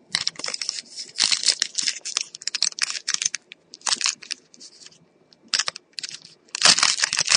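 Trading-card pack wrapper crinkling and cards being handled: quick crackly rustles in clusters, with a brief lull past the middle and a dense burst of crinkling near the end.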